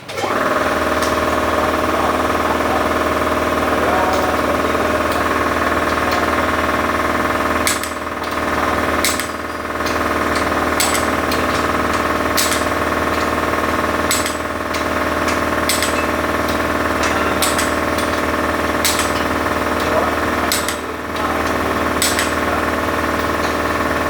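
A machine's motor starts abruptly and runs steadily, with sharp clicks about every second and a half from about eight seconds in.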